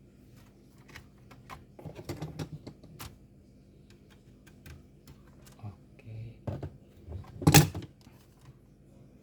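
Sharp plastic clicks and taps from hands working on a laptop's case, prying off the bottom cover. There is a quick run of clicks about two seconds in and one loud snap near the end.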